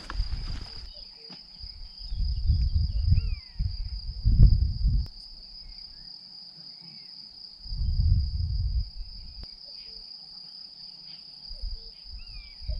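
Steady high-pitched insect trill, like a cricket singing, with several low rumbles of wind on the microphone and a few short chirping bird calls.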